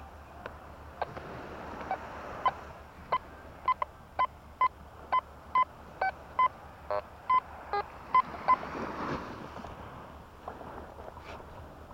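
Quest Q40 metal detector sounding its target tone: about a dozen short beeps, roughly two a second, as the coil is swept back and forth over a buried target in the sand. Most beeps are at one mid pitch, with a few lower ones and one buzzy one. A brief rush of noise follows near the end.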